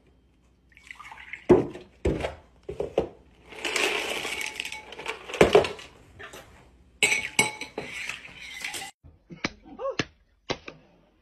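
Clinks and knocks of a ceramic bowl and a glass jar being handled, with two longer stretches of hiss-like noise between them.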